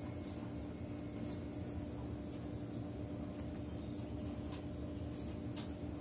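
Pen scratching on notebook paper as a line of words is handwritten, in faint short strokes, over a steady low hum.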